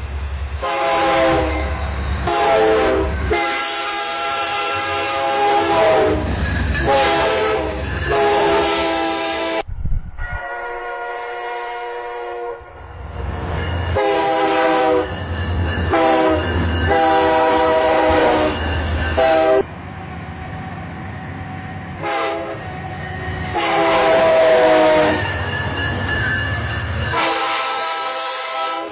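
Three separate recordings of a train passing a railroad crossing, cut together about every ten seconds. In each, the locomotive's air horn sounds a chord in several blasts of different lengths over the low rumble of the passing train.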